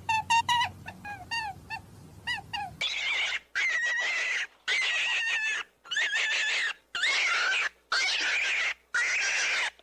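Rabbit calling: a quick series of short, high, squeaky calls, then from about three seconds in a run of long, harsh, high squeals, each about a second long with short pauses between them.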